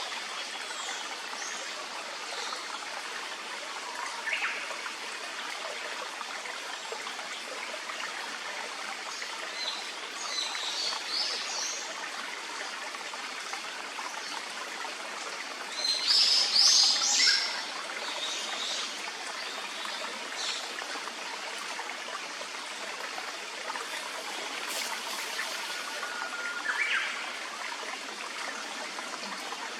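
A clear stream running steadily, with birds calling now and then over it: short high calls a few times, the loudest about halfway through.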